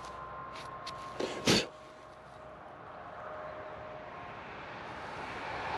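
A single short, sharp puff of breath about a second and a half in, over faint steady tones.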